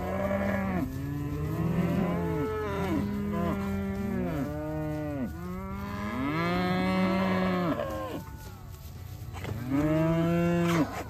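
Young beef calves mooing over one another as the mob is driven along, one call overlapping the next for about eight seconds. After a short lull, one more long moo comes near the end.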